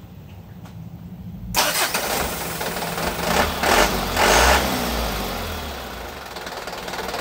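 Diesel engine starting up about a second and a half in, revving in a few loud surges and then settling into a steady idle. It catches straight away now that the upper diesel fuel filter has been replaced and the air bled out of the fuel line, the air that had kept it stalling.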